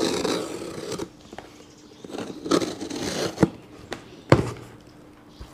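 A small knife slitting the packing tape on a cardboard box, with scraping and crinkling as the box and its flaps are handled, and a few short knocks, the loudest a little over four seconds in.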